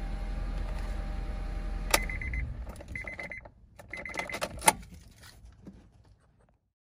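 Honda CR-V's 2.4-litre four-cylinder idling, then a click as it is switched off and the engine stops. A dashboard warning chime beeps three times, about once a second, and a sharp click comes near the end.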